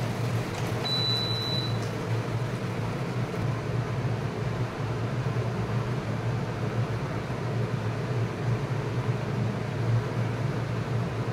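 Induction cooktop control beep: one high steady tone, just under a second long, about a second in. A steady low mechanical hum lies underneath.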